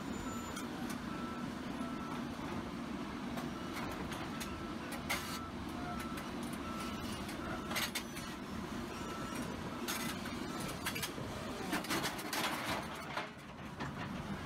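John Deere tracked excavator's diesel engine running while its travel alarm beeps about once a second, as the machine crawls along a steel trailer deck. Sharp clanks from the tracks and trailer come more and more often, thickest shortly before the end, just as the excavator tips off the trailer.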